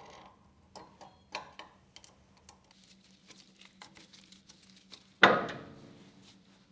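Small metal clicks and ticks as a screwdriver turns a screw holding a spring-loaded part in a lathe spindle nose. About five seconds in comes one sudden loud metallic clang that rings out and fades over about a second.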